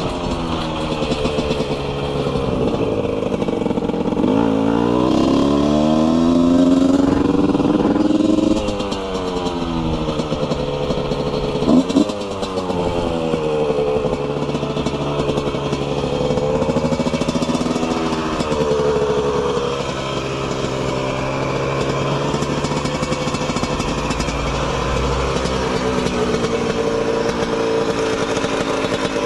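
Husqvarna SM/CR125 two-stroke single, fitted with an HTM head, a 36 mm Keihin carburettor and EMP ignition, revving with its pitch rising and falling in repeated long sweeps. There is a short sharp blip about twelve seconds in.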